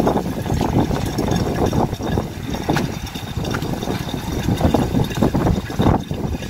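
Water running from a vending machine's filling nozzle into a 19-litre plastic jug, a steady stream filling the bottle.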